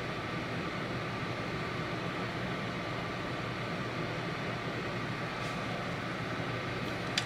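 Steady rushing hum of a running kitchen fan, unchanging throughout, with one sharp click near the end.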